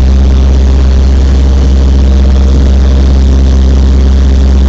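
High-wing light aircraft's engine and propeller drone, loud and steady, heard from inside the cabin in cruise.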